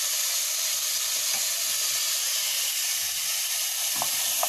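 Food frying in a pot on the stove: a steady sizzle as it browns, with a faint click or two near the end.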